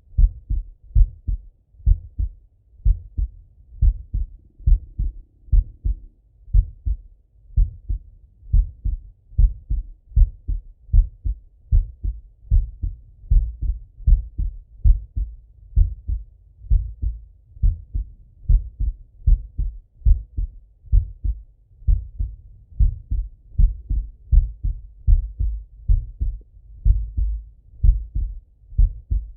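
A man's heartbeat heard through a Littmann stethoscope on his chest as he lies on his left side: a steady, even lub-dub of paired low beats.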